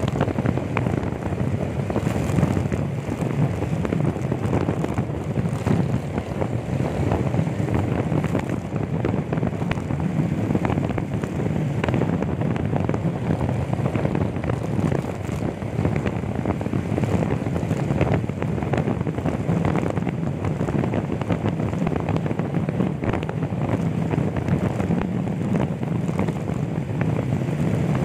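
Wind buffeting the microphone of a phone riding on a moving motorcycle, over the steady drone of the engine and tyres on the road.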